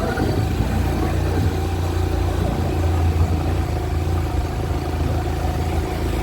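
A vehicle engine running steadily, a low continuous hum, as they travel along the street.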